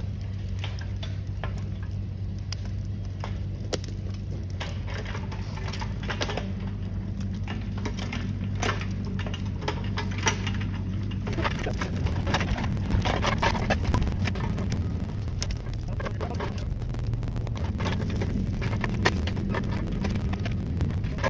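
Brush-pile fire crackling, with irregular sharp pops and snaps over a steady low drone.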